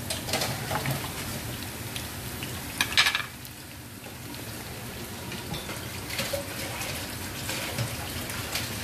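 Minced garlic sizzling as it fries in oil in a small pan, being lightly browned, stirred with a wooden spoon at first. A sharp knock sounds about three seconds in.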